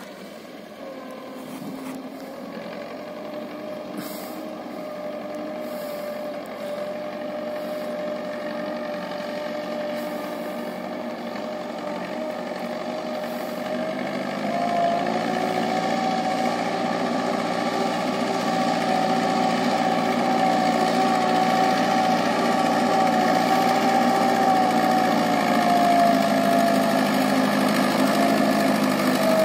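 Fordson Major tractor's four-cylinder diesel engine working under load as it pulls a loaded trolley, growing steadily louder as it approaches. Its note rises slightly about halfway through.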